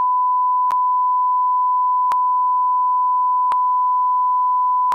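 A steady, loud 1 kHz bleep tone laid over the soundtrack, the kind edited in to mask speech. Faint clicks mark it about every one and a half seconds.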